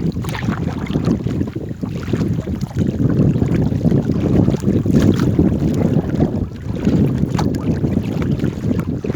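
Wind buffeting the microphone, an uneven low rumble, with a few faint brief ticks.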